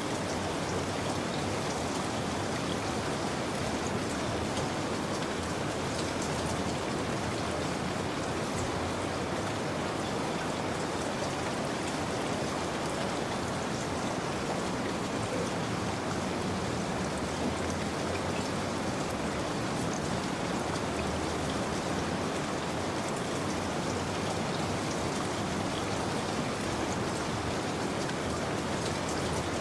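Steady rain falling, an even hiss of drops with faint patter of individual raindrops.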